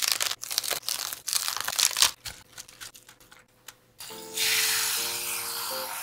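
Crisp Chinese cabbage leaves being torn apart by hand, a quick run of crackly snaps and crinkles. About four seconds in, this gives way to a kitchen tap spraying water into a steel bowl of the torn cabbage, a steady hiss.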